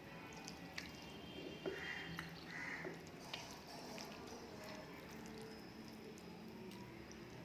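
Faint eating sounds: soft wet squishes of rice and curry being mixed and chewed, with a few light clicks scattered throughout.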